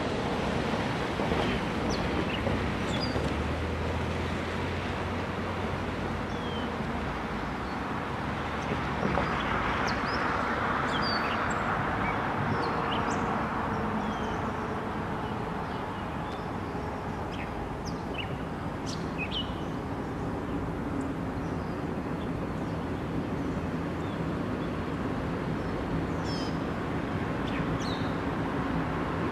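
Small birds chirping, many short high calls scattered throughout, over a steady rumbling hiss.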